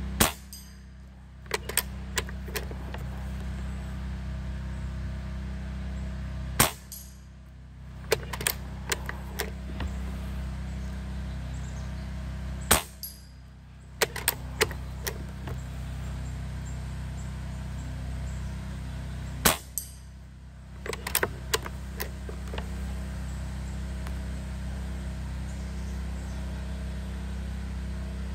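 Umarex Gauntlet .22 PCP air rifle firing four shots about six seconds apart, each a sharp report, followed a second or two later by a cluster of lighter clicks as the bolt is cycled to chamber the next slug. A steady low rumble runs underneath.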